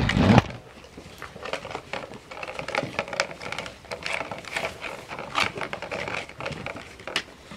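A group of Siberian husky puppies eating from plastic bowls: a quick, irregular patter of small crunches and clicks.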